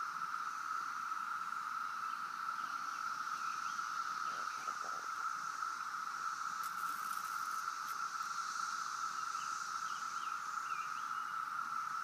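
Chorus of periodical cicadas: a steady, unbroken drone, with a fainter, higher hiss above it.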